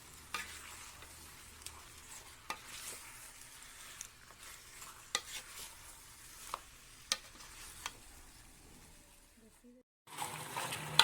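Chicken pieces being stirred into frying onion-tomato masala with a spoon: a soft sizzle, with the spoon knocking against the pan about eight times. The sound drops out briefly near the end.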